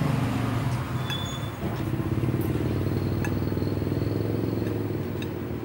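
A motor vehicle engine running steadily, a low hum that fades near the end, with a few light clinks of a spoon and fork against a ceramic bowl.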